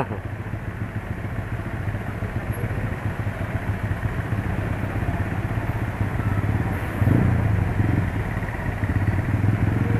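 Motorcycle engines running in a dense traffic jam, a steady low hum that grows louder for a moment about seven seconds in.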